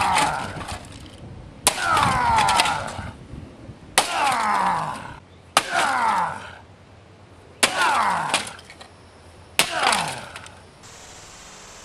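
Sledgehammer blows smashing a Canon PIXMA iP1500 inkjet printer: five sharp strikes about two seconds apart, each followed by about a second of cracking and rattling plastic. A steady faint hiss follows the last strike.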